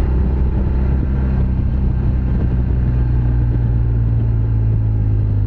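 Motorcycle engine running steadily on the move, its low note growing a little stronger about halfway through.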